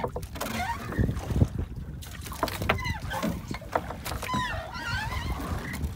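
Steady low rumble of a small fishing boat at sea, with faint voices calling over it.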